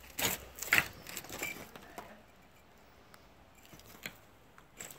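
Footsteps crunching over dry leaves and broken brick rubble, a few sharp crunches in the first second and a half, then only faint scattered crackles.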